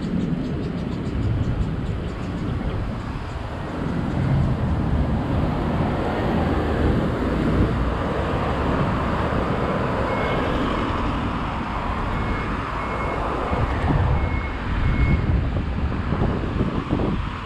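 Road traffic: cars and a truck passing on a busy street, a steady rush of tyre and engine noise that swells in the middle. A few short, faint high beeps sound about two-thirds of the way through.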